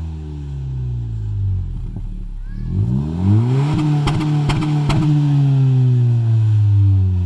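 Exhaust of a 2018 Honda Civic Hatchback Sport's 1.5-litre turbocharged four-cylinder with the muffler deleted, being revved with the car standing. The revs fall away, are blipped up sharply about two and a half seconds in with a few sharp crackles near the top, then sink slowly back down.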